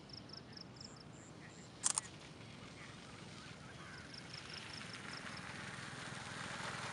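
Rural outdoor ambience at daybreak: two quick runs of short, high chirps, with a sharp double click about two seconds in, the loudest sound. A low rushing noise swells steadily toward the end.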